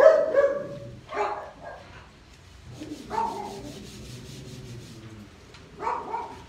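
Dogs barking in short outbursts: a couple of quick barks at the start, one about a second in, a longer drawn-out bark about three seconds in, and another near the end.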